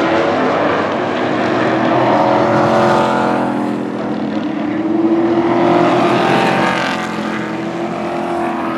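A pack of Pro Truck stock-car-style race trucks racing on a paved oval, engines running hard at racing speed. The engine note swells and rises twice, about two and five seconds in, as the trucks come by.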